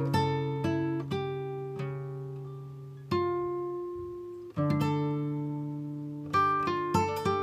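Background music: a slow acoustic guitar piece, plucked notes and chords struck every second or two and left to ring and fade.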